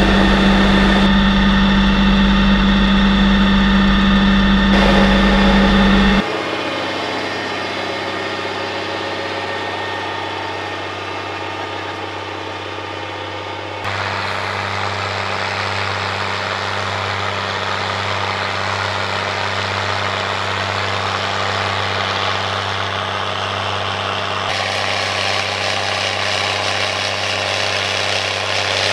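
New Holland G210 tractor's diesel engine running steadily under load while driving a 6 m Maschio Gaspardo rotary power harrow. The sound drops in level about six seconds in and rises again near fourteen seconds.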